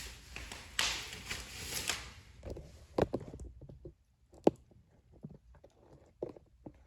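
Rustling handling noise, then scattered light taps and clicks of plastic toy trains being picked up and set down on a surface.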